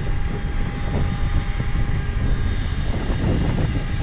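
Wind buffeting the microphone: a loud, uneven low rumble, with a faint steady tone under it.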